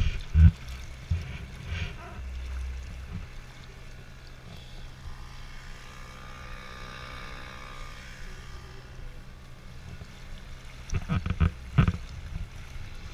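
Small outboard motor on an inflatable boat running steadily at low speed, a low even hum, with water along the hulls. A few sharp knocks come near the start and again about eleven seconds in.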